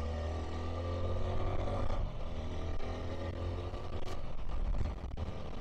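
Motorcycle engine running at steady road speed, heard from a helmet-mounted microphone, with a low wind rumble on the mic.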